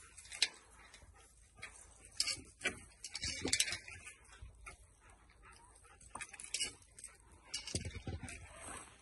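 Faint farmyard animal sounds over scattered rustles and clicks, with the loudest burst about three and a half seconds in.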